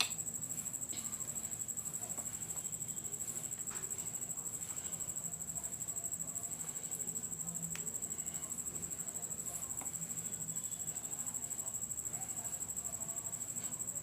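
Hands kneading a soft maida dough, faint soft squishes and taps, under a steady high-pitched tone with a fast flutter and a low hum throughout.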